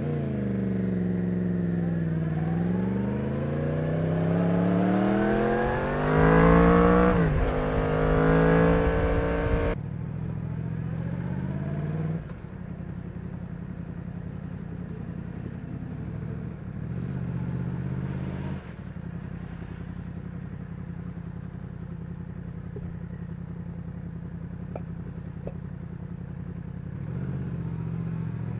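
Yamaha MT-10's crossplane inline-four on its stock exhaust, revving hard as it accelerates. The revs climb with a brief dip at a gear change about seven seconds in, climb again and drop sharply when the throttle closes about ten seconds in. After that it runs at low revs and idles, with a couple of short rises in revs.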